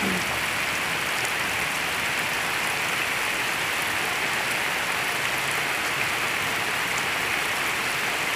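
Rain falling steadily on open water and grass.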